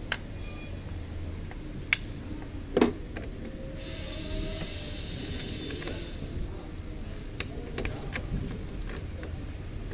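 Hands fitting a wire onto a car battery's negative terminal: a few sharp clicks and knocks of metal and plastic, the loudest about three seconds in, with a stretch of rustling in the middle.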